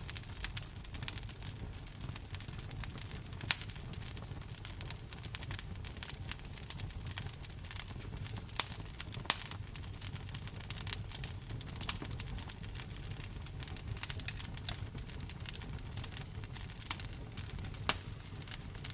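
Wood fire burning in a fireplace: a steady low rumble of flames with many irregular sharp crackles and pops, a few louder pops standing out.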